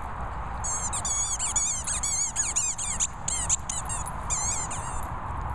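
Squeaky ball toy squeaking rapidly over and over as a small dog bites down on it, each squeak high and bending in pitch; the squeaking stops about five seconds in.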